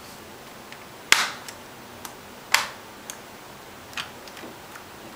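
Plastic retaining tabs of a replacement keyboard clicking into place in an Acer Aspire One netbook as the keyboard is pressed down. Two sharp clicks come about a second and a half apart, with several fainter clicks between and after them.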